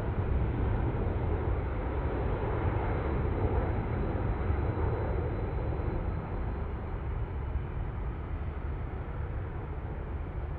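Jet airliner engines rumbling after takeoff, slowly fading as the aircraft climbs away, with a faint high engine whine that drifts slightly down in pitch.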